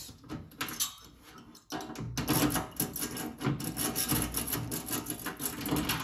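Metal rake pick rattling and scraping over the pins of an EST fire alarm panel lock, held under tension with a tension wrench. It starts with a few scattered clicks, then turns into fast continuous raking from about two seconds in. The lock is stiff, and it is being raked open.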